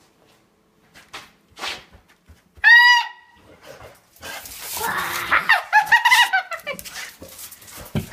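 Dogs fighting: a pit bull attacking another dog. There is a sharp, high-pitched cry about three seconds in, then a dense run of cries and scuffling from about four and a half seconds on.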